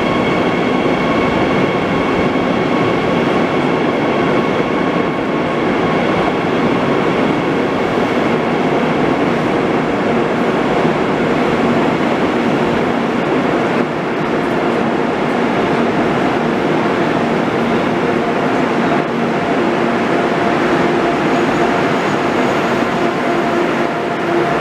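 Israel Railways double-deck passenger train at an underground station platform: a loud steady running rumble, with a high whine that fades over the first few seconds as the train slows.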